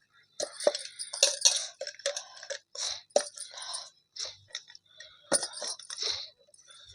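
Metal kitchen utensils clinking and scraping in a run of irregular light taps.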